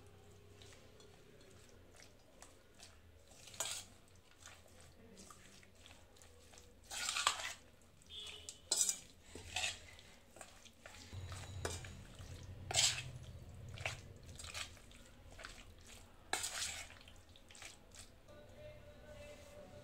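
Metal spoon scraping and clinking against a stainless steel bowl while stirring chicken pieces into a thick yogurt and spice marinade, in irregular strokes with a few sharper clinks.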